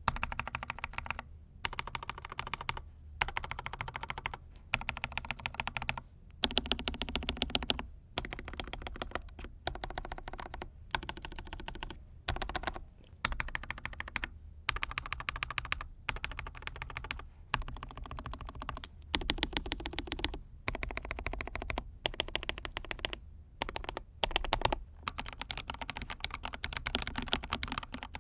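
Mechanical keyboard with lubed KTT Baby White linear switches, typed on in quick runs of keystrokes. It gives a dense clatter of soft clicks, broken by short pauses every second or two.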